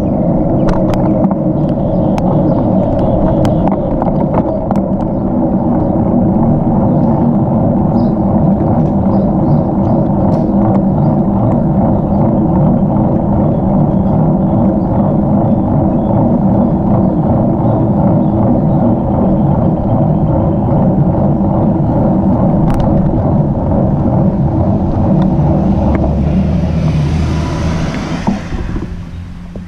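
Steady, loud road noise of a bicycle ride on a mounted camera: wind and tyre rumble on pavement. A hiss rises near the end, and then the rumble fades away.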